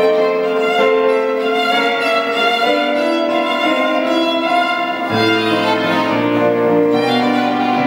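Violin playing a slow melody of held notes with electronic keyboard accompaniment; a low bass line comes in about five seconds in.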